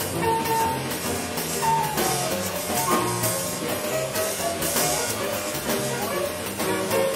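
Small bebop jazz combo playing: a moving single-note lead line over a low line that changes note about twice a second, with drums and cymbals keeping time.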